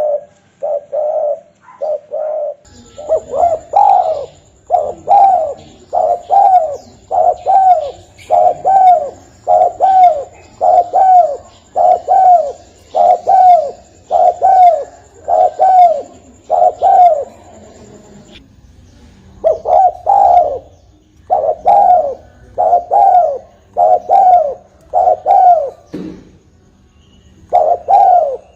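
Spotted dove (tekukur) cooing, a long series of repeated coos about one a second, with brief pauses about two-thirds of the way through and near the end. A faint, steady high whine runs under the calls for the first half.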